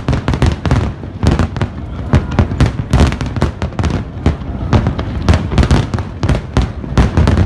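Aerial fireworks shells bursting in quick succession: many overlapping bangs, several a second, over a continuous low rumble.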